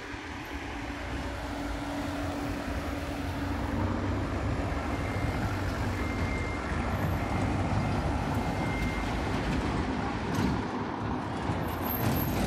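City street traffic at a crossing: engines of passing cars and a small truck, the sound building up over the first few seconds and then staying steady.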